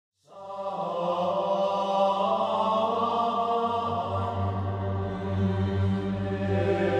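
Intro music of sung chant, held notes over a steady low drone, coming in just after the start.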